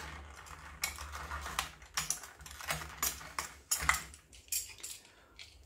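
Utility knife cutting open a stiff clear plastic blister pack, the plastic giving irregular crackles and clicks.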